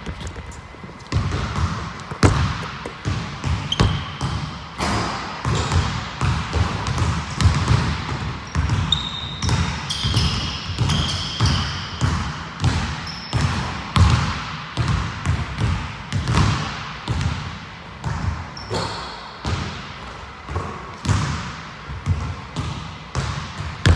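Basketball dribbling on a hardwood gym floor: a steady run of bounces throughout. A few short high sneaker squeaks come in the middle and again later.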